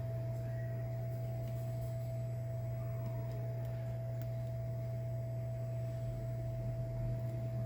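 Steady low electrical hum with a steady higher whine above it, and a few faint light clicks.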